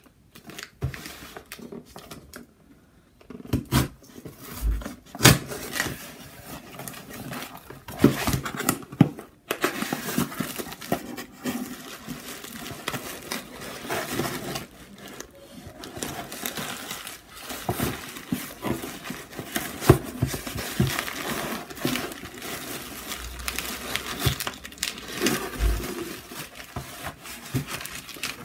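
Cardboard shipping box being opened by hand: a knife cutting the packing tape and the flaps being pulled open, then the crinkling and rustling of plastic bubble wrap and paper as the packed contents are taken out, with scattered sharp knocks and scrapes throughout.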